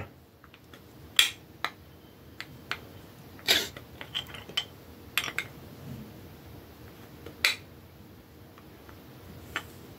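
Scattered clicks, knocks and light clinks as a capped bottle of sparkling water is handled and its cap twisted in repeated attempts to get it open, with short pauses between them.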